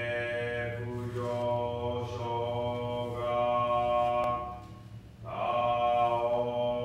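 A man's voice chanting a Buddhist sutra in Sino-Japanese, in long drawn-out tones, pausing for breath about five seconds in before going on. A steady low hum runs underneath.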